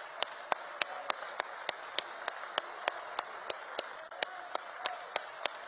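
Rhythmic hand clapping, evenly spaced at about three to four claps a second, over a steady hiss of hall noise.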